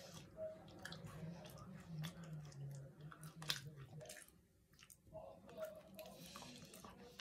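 A person chewing a Kit Kat wafer bar: soft wet mouth sounds and small crunches and clicks, pausing briefly a little past the middle. A steady low hum runs underneath.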